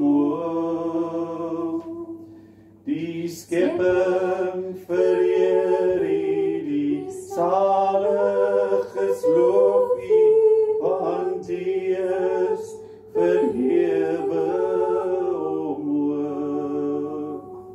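Worship song sung unaccompanied, in sung phrases with short pauses between them, over a steady low hum.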